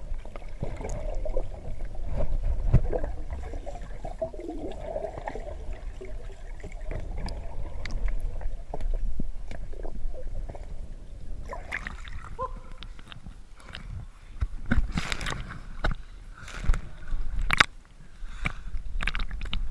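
Muffled underwater gurgling and bubbling picked up by a GoPro in its housing as a swimmer passes through a flooded sea-cave tunnel. In the last several seconds come a run of sharp splashes as the camera breaks the surface.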